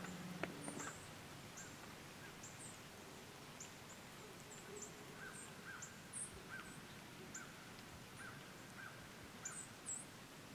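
Faint, thin, high-pitched chirps of small birds calling irregularly from the woods, with a single click about half a second in.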